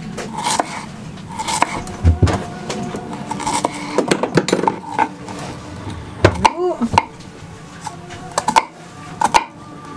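A kitchen knife chopping an onion on a wooden cutting board: uneven knocks of the blade striking the board, with short pauses between cuts.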